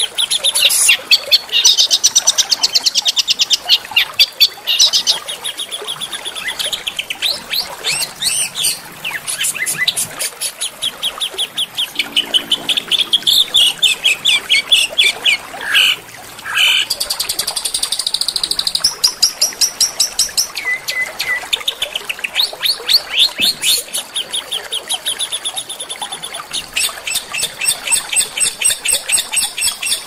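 Small songbirds singing a dense, fast string of sharp trills and chattering notes, high in pitch, each trill many notes a second, with a brief break about halfway.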